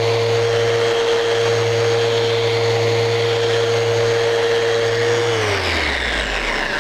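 Festool Rotex sander running at top speed in its gear-driven Rotex mode, buffing polish on a wooden block with a sheepskin bonnet: a steady motor hum. About five seconds in it is switched off and winds down, its pitch falling away.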